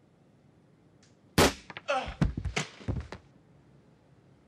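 A sudden loud hit about a second and a half in, followed by a quick run of sharp knocks and thuds lasting under two seconds: impacts from a fight or shooting scene.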